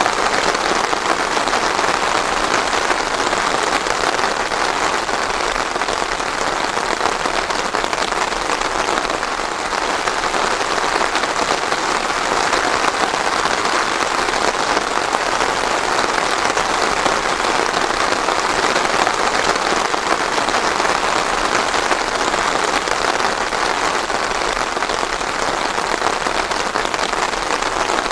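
Steady rain falling, a dense, even patter of drops on a surface, with no thunder.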